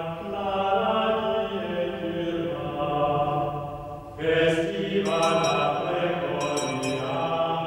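Background music of slow chanting voices holding long notes, in two phrases, the second beginning about four seconds in.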